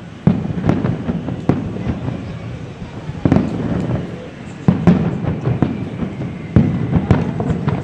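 Aerial firework shells bursting, about nine sharp bangs at uneven intervals, each trailing off in a low rumbling echo.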